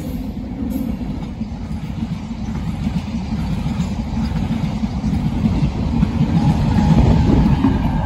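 Electric freight train rolling past close by: steady rumble and clatter of empty flat wagons' wheels and bogies on the rails, loudest about seven seconds in.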